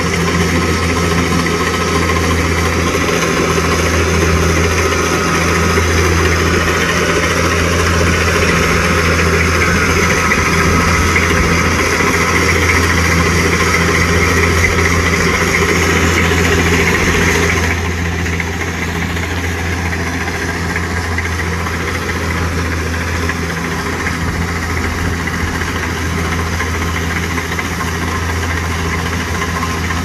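Kubota DC-70G combine harvester's diesel engine running steadily as the tracked machine drives through a soft, wet rice field. The sound drops suddenly about eighteen seconds in and carries on lower.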